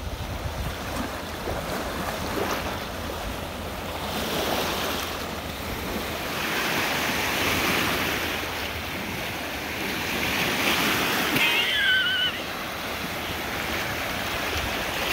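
Small lake waves breaking and washing up on a sandy shore, the surf swelling and easing every few seconds, with wind rumbling on the microphone. A short high warbling call comes in near the end.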